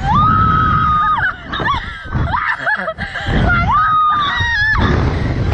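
Riders screaming on a slingshot amusement ride: two long high screams, each held about a second, one near the start and one about three and a half seconds in, with shorter cries between them, over wind rumbling on the microphone.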